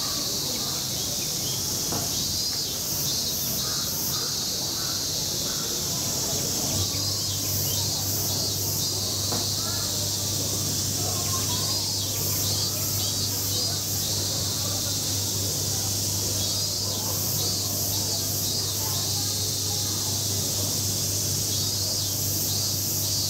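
Summer cicadas droning steadily, with short chirping calls repeating every couple of seconds over the drone. A low steady hum comes in about seven seconds in.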